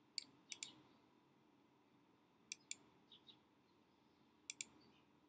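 Computer mouse button clicks while selecting a link on screen: three pairs of sharp clicks about two seconds apart, with a few faint ticks in between.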